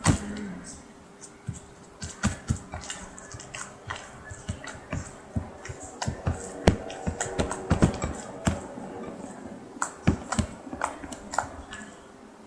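Homemade glue slime being stirred and worked, giving irregular wet, sticky clicks and pops.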